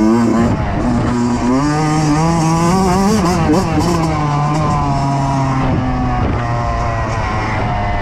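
Kawasaki KX85 two-stroke single-cylinder dirt bike engine under way, its revs climbing and dropping back several times as the rider shifts gears and works the throttle. It holds a fairly steady pitch in the second half, then falls off near the end.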